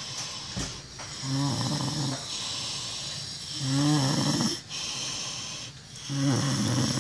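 Snoring: three loud snores about two and a half seconds apart, with softer breathing between them.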